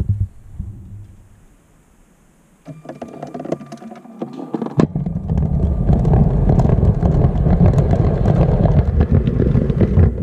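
A GoPro being pushed along plastic LEGO track by a LEGO TEE train, rattling and rumbling as it bounces over the rails. It dies away almost to quiet early on, comes back with clicks and a faint whine, and from about five seconds in settles into a steady loud rattling rumble.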